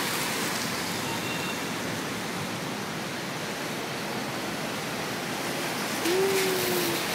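Steady city street traffic noise, an even hiss with no clear single vehicle, and a short held tone about six seconds in.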